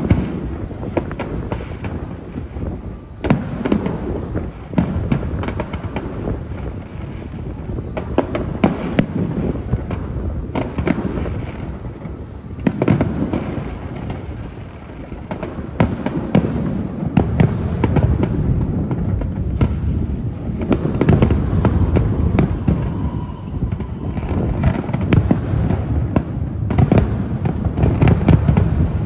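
Fireworks display: aerial shells bursting one after another, sharp bangs over a continuous low rumble and crackle, growing denser and louder through the second half.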